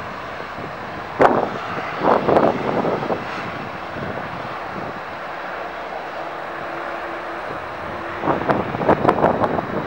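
Airliner engines running steadily at an airport, broken by several loud irregular bursts of noise about a second in, around two to three seconds in, and again near the end.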